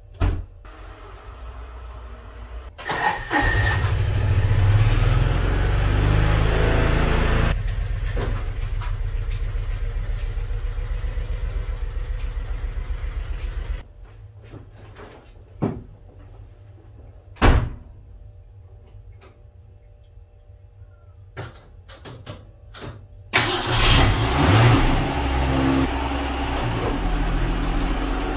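A side-by-side utility vehicle's engine starts, revs and runs for about ten seconds, then cuts off suddenly. A few knocks and a car door shutting follow. Then a 1966 Ford Mustang's engine is started and keeps running.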